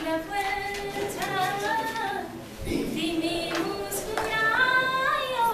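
A woman's voice reciting a Nepali poem in a sung, melodic chant, with long held notes that glide up and down and a short pause for breath partway through.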